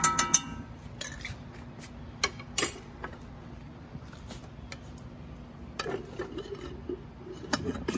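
A utensil clinking against a glass jar and a cast-iron skillet as coconut oil is scooped into the pan: a quick cluster of ringing clinks at the start, then a few scattered taps and knocks.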